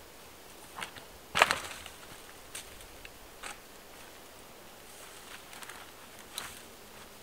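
Dry dead branches cracking and knocking as they are handled and set against a fallen log. The loudest is a sharp crack of splintering wood about a second and a half in, followed by a few lighter cracks and knocks.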